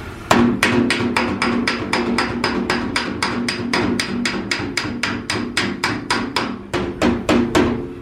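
Panel-beating hammer tapping steadily on the Lanos's steel body panel, about three to four quick blows a second, each with a short metallic ring, as the dent is worked out.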